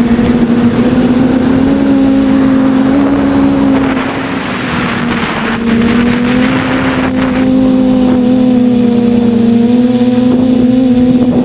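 Brushless motors and 10-inch propellers of a QAV540G quadcopter heard from its onboard camera: a loud steady buzz whose pitch steps up and down slightly with throttle. A rushing hiss of air comes over it for a few seconds in the middle.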